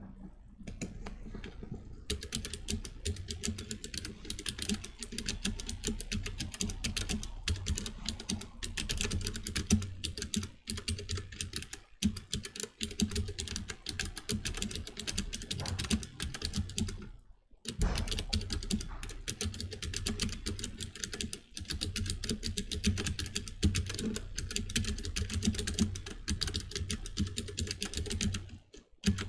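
Rapid, continuous typing on a Keychron K3 low-profile optical mechanical keyboard, a dense clatter of key clicks with a short break about 17 seconds in.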